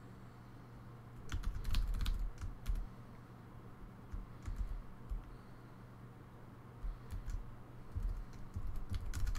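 Computer keyboard typing in several short runs of keystrokes, starting about a second in.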